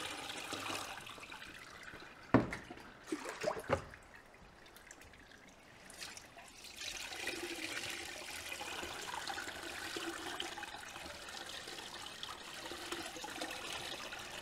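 Seawater poured from a jug over rotted seagrass in a quarter-inch garden sieve, splashing and trickling through the mesh into a bucket below to rinse the seeds through. A few sharp knocks come two to four seconds in, then a steady pour runs from about seven seconds in.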